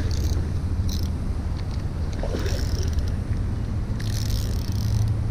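Steady low rumble of wind buffeting the microphone, with a few short high hissy bursts on top, the longest about four seconds in.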